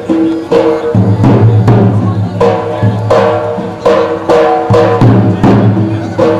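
Music with a steady drum beat, about two to three strikes a second, under a melody of held notes.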